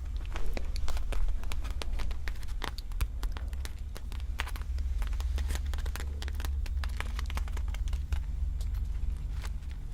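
Irregular small clicks and crinkles over a steady low rumble.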